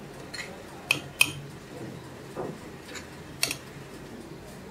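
A metal measuring spoon clinking lightly against a stainless-steel mesh sieve as spoonfuls of flour are tipped in: a few sharp clicks, two close together about a second in and one more past the middle.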